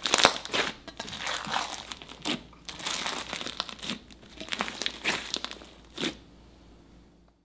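Hands squeezing, pressing and folding a large mass of slime studded with Orbeez beads and play foam, giving a dense, irregular run of small clicks and pops. The sounds stop about six seconds in.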